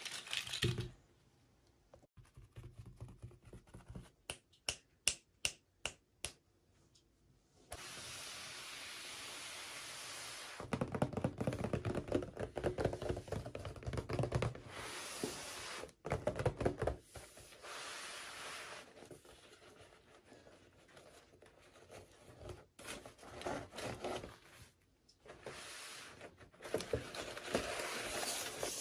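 Toy packaging being handled and opened: a quick run of sharp clicks, then long stretches of rustling, crackling and scraping with short pauses between them.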